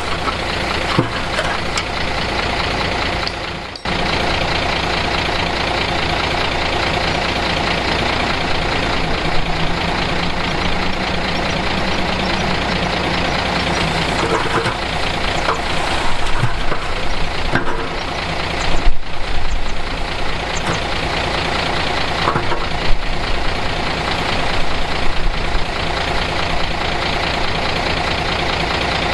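Diesel engines of earthmoving machinery running steadily, with a few sharp knocks mixed in. The sound drops out briefly about four seconds in and again near nineteen seconds.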